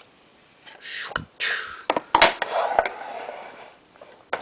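Trading cards being handled on a tabletop: two quick sliding swishes about a second in, then a few light taps and clicks with soft rustling as the stack is squared up.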